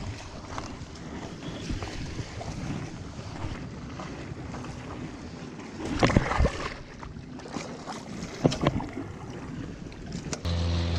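Wind buffeting the microphone over the wash of surf against the jetty, with louder gusts about six seconds in and again a couple of seconds later. Near the end a steady low hum cuts in abruptly.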